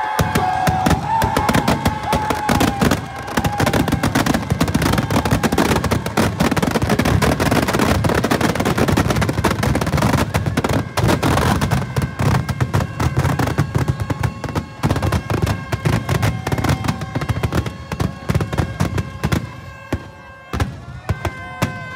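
Firecrackers packed inside a burning Ravan effigy going off in a dense, continuous barrage of cracks and bangs, thinning out near the end.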